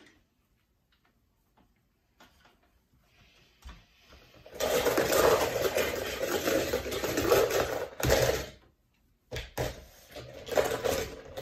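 Die-cast toy cars clattering against each other and a plastic bowl as they are stirred around, for about four seconds starting partway in. A shorter rattle follows near the end as a hand rummages among them.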